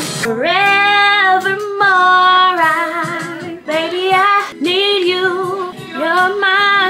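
Music: a woman singing a slow R&B ballad in long held notes that waver in pitch, phrase after phrase.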